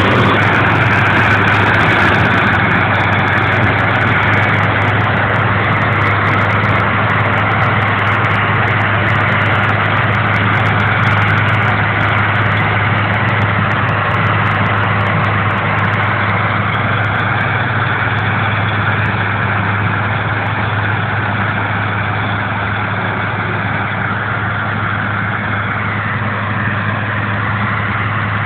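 Farm tractor engine running steadily, driving a hay baler: a constant low engine hum with mechanical noise over it.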